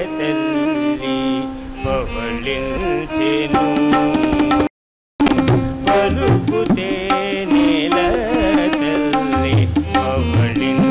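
Carnatic-style devotional music: a wavering melodic line over percussion strikes. The sound drops out completely for about half a second a little before the middle, then resumes.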